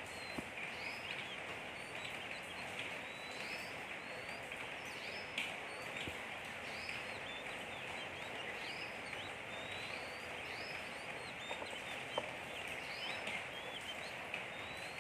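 A small caged songbird twittering: a steady run of short, high, curling chirps, a few notes every second or so, over a steady background hiss.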